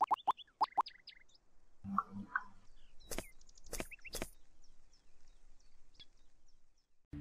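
Touchscreen keyboard tap sounds, a quick run of short pops, in the first second; then three sharp footsteps of hard-soled leather shoes between about three and four seconds in. Birds chirp in the background.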